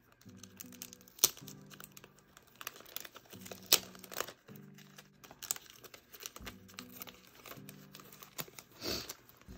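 Packaging being handled and torn open, crinkling with sharp crackles and small tearing sounds, the loudest crackles about a second in and near four seconds. Quiet background music with slow-changing chords plays underneath.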